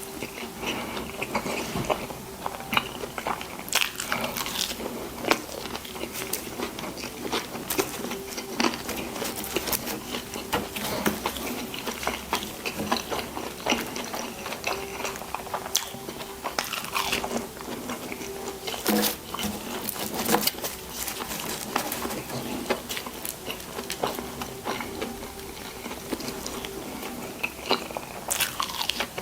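Close-miked mouth sounds of eating burgers and fries: biting and wet chewing, with a steady run of small crackly clicks.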